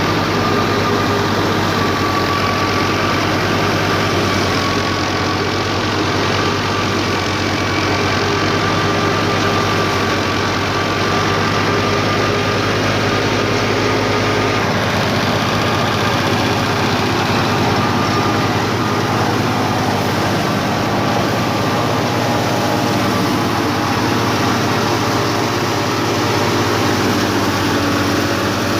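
Wheat thresher running under power: a steady, loud machine drone with a faint wavering whine above it. The deepest part of the rumble drops away about halfway through.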